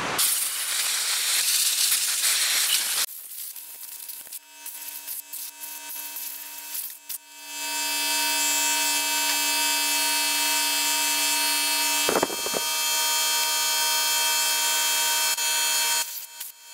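Compressed air from an air hose hissing steadily for about three seconds. A few seconds of small clicks follow, then a loud steady hissing hum with several held tones that runs for about eight seconds, breaking briefly partway through.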